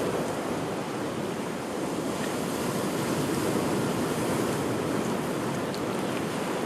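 Heavy sea surf washing onto the shore in a steady rush, with wind on the microphone.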